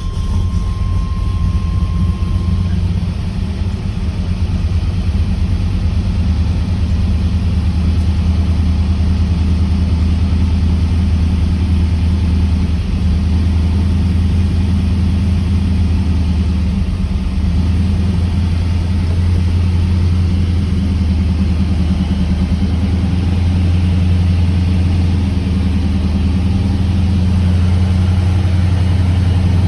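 The 1979 Camaro Z28's V8 engine running steadily at a low, even pitch.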